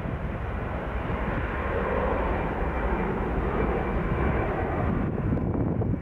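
Airbus A320 jet engines at takeoff power during the takeoff roll: a steady, loud jet rumble with a faint whine above it, swelling a little in the middle.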